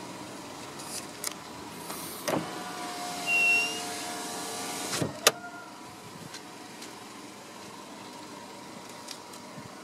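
Electric window motor in a Chevrolet hatchback's front passenger door, running for about three seconds as the glass moves, then a sharp click as it stops.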